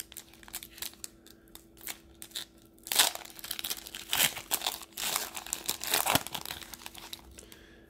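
Foil wrapper of a trading-card pack being torn open and crumpled by hand, an irregular crinkling that is loudest about three seconds in and again around four to six seconds.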